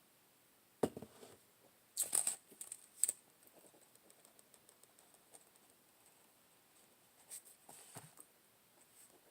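Faint sounds of handling a paper journal and pen. There is a knock about a second in, a burst of paper rustling and clicks around two to three seconds, light scattered taps of writing, and another short rustle near the end.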